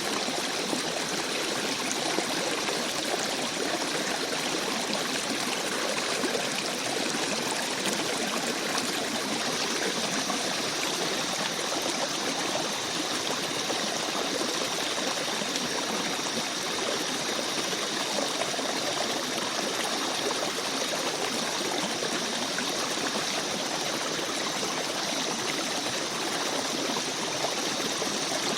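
Small forest stream babbling and trickling over rocks, a steady unbroken rush of water.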